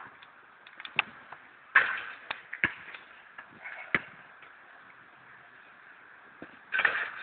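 A basketball bouncing on a hard outdoor court, about five sharp, irregularly spaced knocks, with a louder noisy burst near the end.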